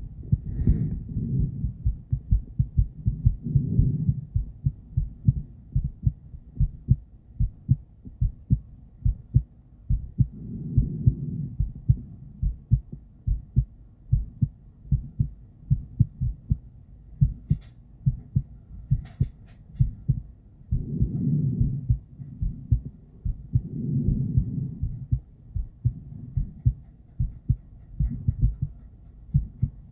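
A woman's heartbeat picked up through an ultrasonic Doppler device: a steady, regular run of beats, with several swells of low sound lasting about a second each and a few faint clicks around the middle.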